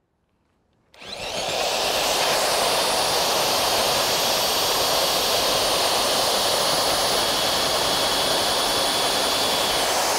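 Pneumatic drill on a long extension shaft starts about a second in, its air motor winding up quickly, then runs steadily under load while boring a hole through a fiberglass boat hull for a bow thruster tube.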